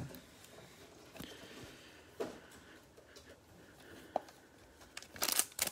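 Faint handling noises with a couple of light taps, then, about five seconds in, the crackling rustle of a baseball-card cello pack's plastic wrapper as it is picked up from the stack.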